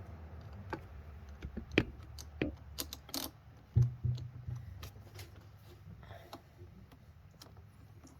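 Scattered light metallic clicks and taps as a fuel pump mounting bolt is threaded in by hand, with two louder knocks about two and four seconds in.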